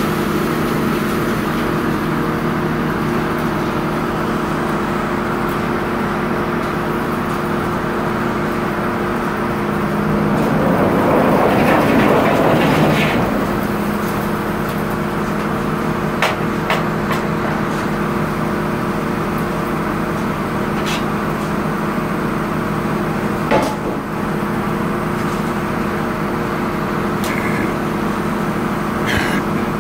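Sawmill machinery running with a steady motor hum. About ten seconds in, a louder rasping noise swells and fades over about three seconds, and sharp knocks and clicks come now and then afterwards.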